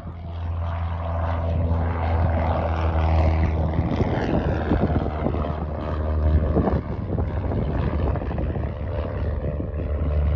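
Propeller-driven light-aircraft piston engine, the Cessna 177A Cardinal's four-cylinder Lycoming, running steadily with the propeller turning.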